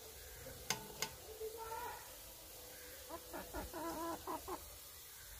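Chicken clucking in a run of short repeated calls, most of them from about three to four and a half seconds in. Two sharp clicks come about a second in.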